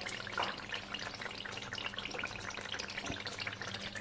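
Thick mutton curry cooking down in oil in a pan, a steady dense crackle of small pops and sizzles as it nears the end of cooking.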